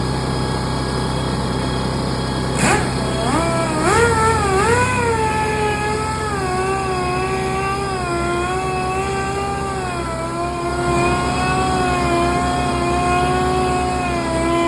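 A 6-inch power sander starts about three seconds in, spins up and runs, wet-sanding a polycarbonate headlight lens with 800-grit paper. Its whine wavers and sags in pitch as it is pressed onto the lens, over a steady low hum.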